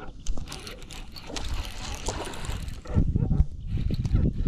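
A baitcasting rod and reel being cast and then held to reel in, with line and handling noise, and low rumbling wind buffeting from about three seconds in.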